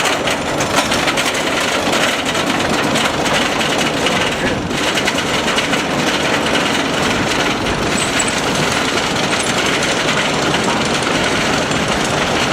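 Wooden roller coaster train with GCI Millennium Flyer cars giving a steady, rapid clatter on its track.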